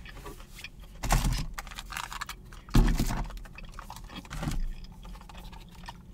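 Plastic dipping-sauce cups and food packaging being handled: rustling and light clicking in three short bursts, about one, three and four and a half seconds in, the middle one loudest with a dull bump.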